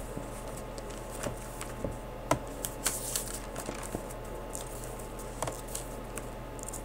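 Bible pages being turned, soft paper rustles and small taps and clicks scattered through, over a steady low hum.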